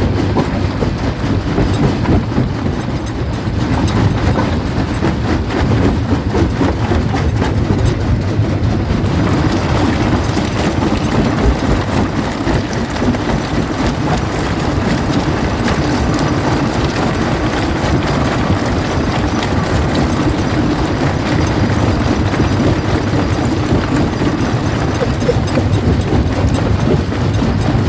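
Primary jaw crusher running and crushing stone: a steady heavy rumble under dense cracking and clatter of breaking rock. The clatter grows brighter and busier about nine seconds in.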